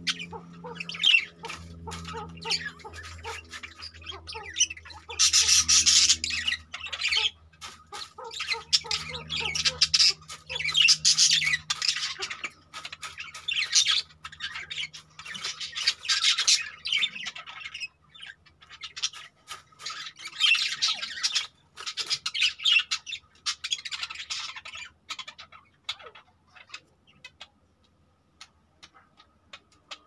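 Exhibition budgerigars chattering and squawking in harsh bursts, with a low hum under the first half. The chatter thins out to a few scattered calls near the end.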